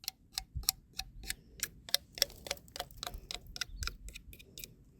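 Rapid, slightly uneven mechanical clicking, about four sharp clicks a second, thinning out and fading near the end.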